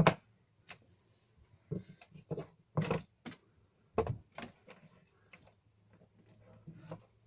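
Irregular clicks and knocks of parts and tools being handled, about ten in all, the loudest at the very start, about three seconds in and about four seconds in.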